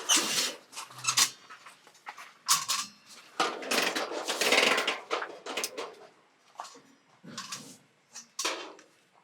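Irregular clatter of dishes and utensils being handled and set down: a run of clinks and knocks that thins out near the end.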